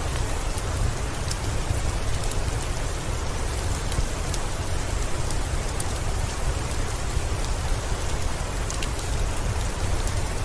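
Steady heavy rain with a deep low rumble, mixed with scattered light crackles from a wood fireplace.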